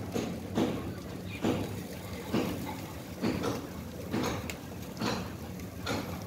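Footsteps at a steady walking pace, about one a second, over a steady low hum of machinery from the liquid oxygen tanker unloading at the tanks.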